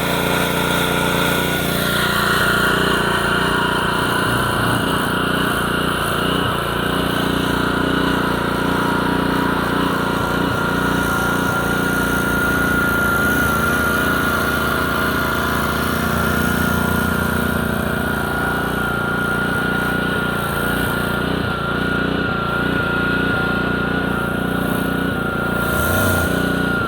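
Small-engine pressure washer running steadily under load while spraying, with a constant high whine over the engine noise. The sound shifts about two seconds in.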